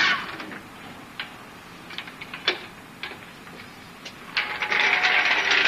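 Red trolley floor jack being worked under the front of a car: scattered sharp metal clicks, then from about four seconds in a couple of seconds of dense, loud clicking and rattling.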